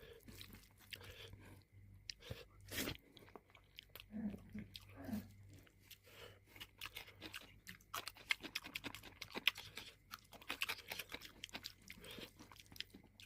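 A person chewing food close to the microphone: wet mouth clicks and irregular crisp crunches, growing quicker and denser in the second half.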